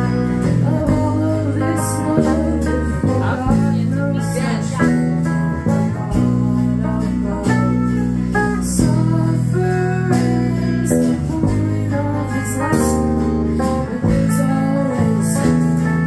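Live rock band playing loudly: electric guitar, acoustic guitar, electric bass and drums, with steady drum and cymbal hits.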